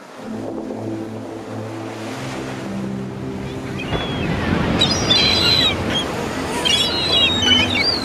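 Ocean surf washing steadily, with soft held musical notes underneath that change pitch every second or so. From about halfway in, high wavering squeaks come in on top.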